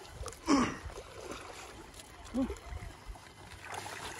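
A wet mesh fishing net full of weed handled in shallow water, with light splashing and rustling. A short vocal exclamation comes about half a second in, and another brief one near the middle.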